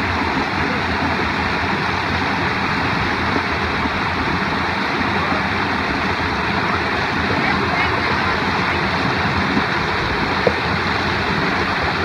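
A shallow rocky stream rushing steadily over and between boulders, with water splashing through the gaps.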